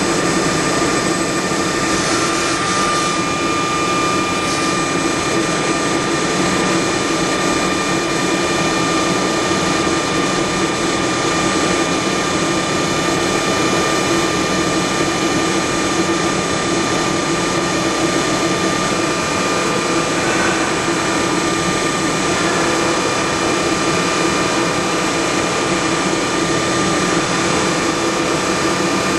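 Fryer ET-21 CNC toolroom lathe running and machining a metal part: a steady mechanical whine with several high steady tones over continuous cutting noise.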